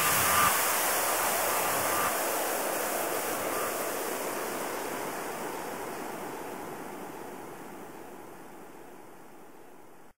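Closing white-noise wash of a hardstyle track: an even hiss whose bass drops away about half a second in, then fading slowly and steadily before cutting to silence near the end.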